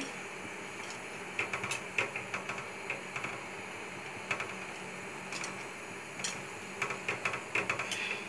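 Wire whisk stirring milk in a stainless steel pot, its wires clicking against the metal sides and bottom in short irregular runs of ticks.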